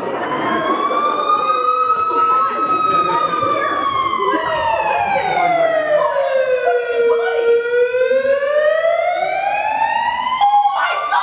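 Siren wailing in one long, slow sweep. It rises a little, then falls steadily for several seconds to a low point, then climbs again near the end. Crowd murmur runs underneath.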